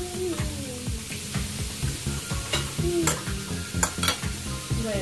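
Eating at a table: a few sharp clinks of a utensil against a plate or foil tray, over a low steady background with faint music.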